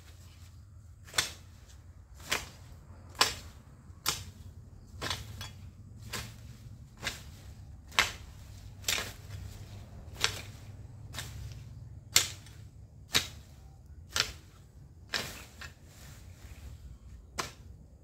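Long-handled hoe chopping into garden soil and weeds, one sharp strike about every second.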